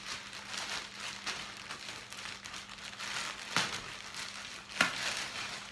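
Clear plastic packaging bag crinkling and rustling as it is handled and pulled at by hand, with two sharper, louder crackles about three and a half seconds and nearly five seconds in.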